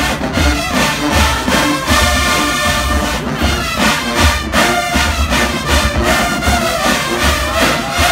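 Marching band playing: a loud brass section of trumpets and trombones over a steady, driving drum beat.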